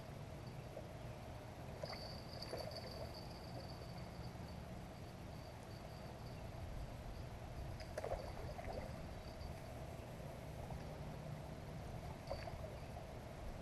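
Light water splashing at the shoreline as a hooked carp is played and netted, over a steady high insect trill that runs from about two seconds in to about ten seconds in.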